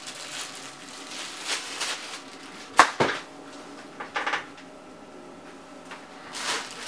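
Plastic wrapping rustling as packed parts are handled, with a sharp clack about three seconds in, a second knock just after it, and a few lighter clatters a second later.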